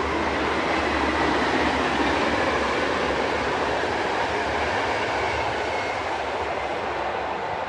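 Electric-locomotive-hauled passenger train running across a concrete viaduct: a continuous rumble of wheels on rail that is loudest about a second or two in and then slowly fades as the coaches pass.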